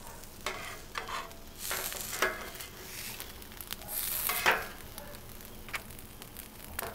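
Shredded chicken sizzling on a flat-top griddle while a metal spatula scrapes and scoops it, several short scrapes with a sharp clink about four and a half seconds in.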